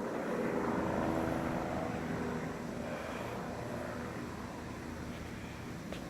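Low-flying helicopter passing overhead: a steady engine and rotor drone, loudest about a second in and then slowly fading as it moves away.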